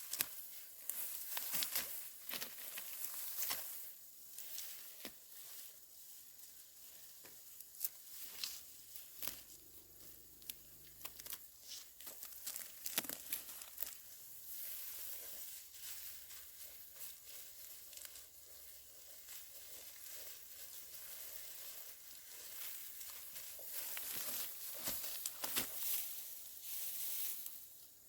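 Dry rustling and crackling, with many small irregular crinkles and clicks over a steady hiss, busier near the start and again near the end.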